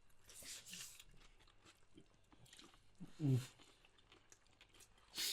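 Close-up chewing and crunching of crunchy food, with small clicks and crackles and a short hummed "mm" about three seconds in.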